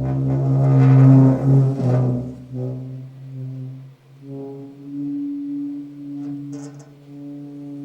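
Low, sustained droning tones with ringing overtones, swelling loudest about a second in, fading almost away around four seconds in, then returning as a steady drone.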